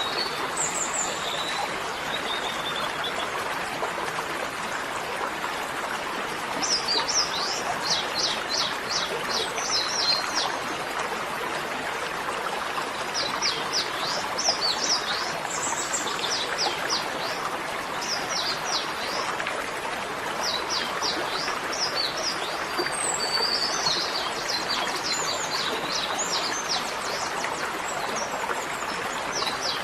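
Birds chirping in quick repeated series of short high notes, several bouts, over a steady rushing background noise.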